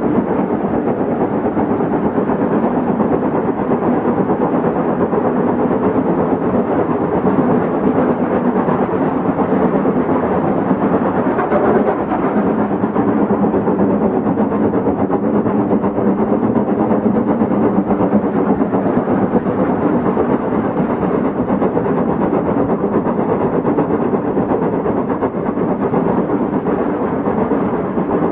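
OO gauge model locomotive running on layout track: a steady rumble of motor and wheels on rail.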